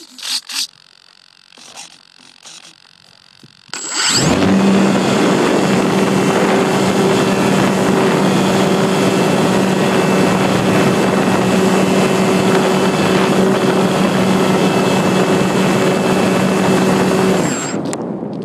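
An RC glider's motor and propeller, recorded by the onboard phone: the motor starts about four seconds in and runs at a steady drone, with a loud rush of air as the plane launches and climbs. It cuts out near the end, leaving only wind noise. Before it starts there are a few faint knocks from handling.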